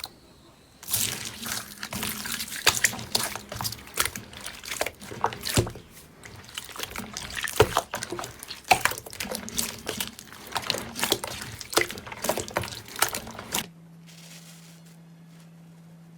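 Slime being squeezed and worked by hand: a dense, irregular stream of wet clicks, pops and crackles. It stops abruptly near the end, leaving only a faint steady low hum.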